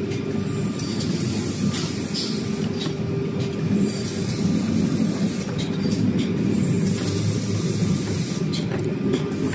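Edge banding machine running: a steady mechanical rumble with short hisses and clicks scattered through.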